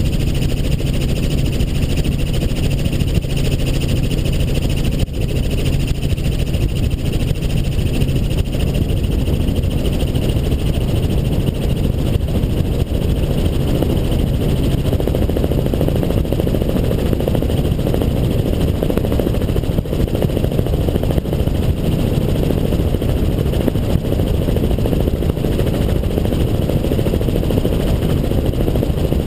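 Helicopter in flight: steady engine and rotor noise with a low hum and a high whine.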